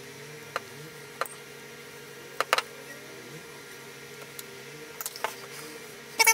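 A few light, sharp clicks and taps of metal tweezers, small candy pieces and the tabletop as candies are placed on an iced gingerbread cookie. A steady low hum runs underneath.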